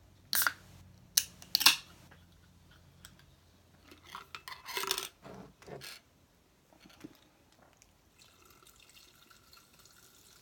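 Aluminium can of sparkling water being cracked open: sharp clicks of the tab, loudest about a second and a half in, then a short hissy burst and some handling near the middle. Near the end the fizzy water is poured softly into a glass jar over ice.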